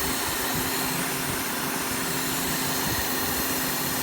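2005 Cadillac DeVille's Northstar V8 running steadily under a constant hissing noise. The owner hears it as hissing or rubbing and suspects a stuck A/C compressor or a vacuum leak.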